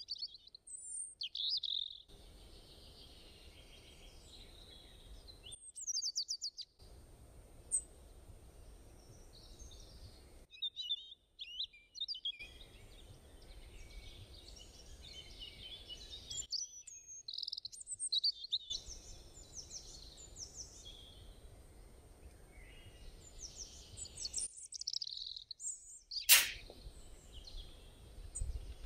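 Small birds chirping and twittering in the background over a faint low hum, broken by several short silent gaps. One sharp clink near the end.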